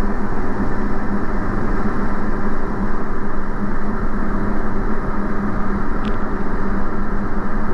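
Engine and propeller drone of a Diamond DA40 single-engine light aircraft in flight, heard in the cabin: a steady, loud hum with a constant low tone and no change in power.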